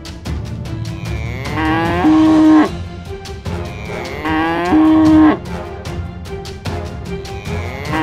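Bull mooing twice, each a long call that rises and then holds at a steady pitch, loudest at the end. Background music with a steady beat runs underneath.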